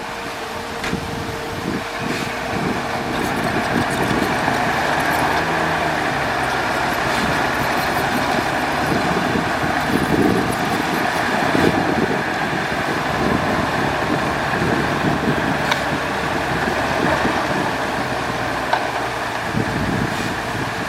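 A large bulldozer's diesel engine running steadily, with a constant hum-like tone through it.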